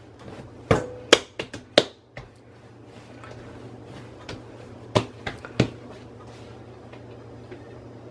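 Hands kneading and pressing bread dough on a stone countertop: a quick run of sharp slaps and taps in the first two seconds, three more about five seconds in, over a low steady hum.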